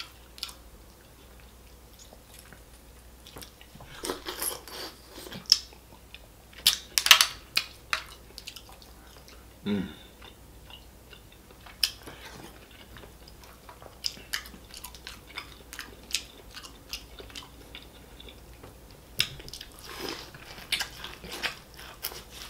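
Close-miked wet chewing and lip smacking from a man eating seafood boil, in scattered bursts with small clicks, and one short falling hum about ten seconds in. Near the end he bites into a cob of corn.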